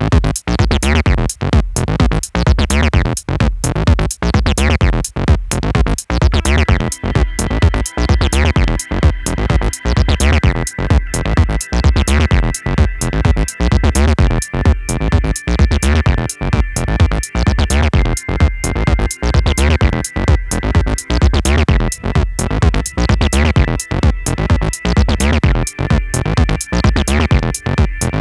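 Electronic music played on phone music apps: a drum-machine beat and synth bass from KORG Gadget 3, the sound dipping in short regular gaps with the beat. About seven seconds in, held high notes join over the top.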